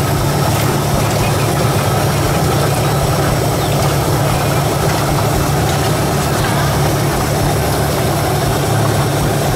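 Loud, steady low machine hum over a constant hiss, even throughout with no distinct knocks or strikes.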